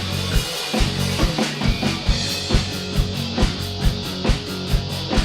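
Instrumental passage of a rock-style song with no singing: a drum kit keeps a steady beat, the bass drum striking about twice a second, over sustained bass notes, with a fast hi-hat-like ticking coming in about halfway through.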